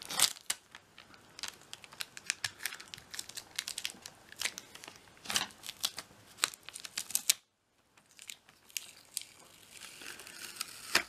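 Clear adhesive tape crackling and crinkling as fingers press and smooth it down over a card of fishing hooks, in irregular sharp crackles, with a brief break of silence a little past halfway.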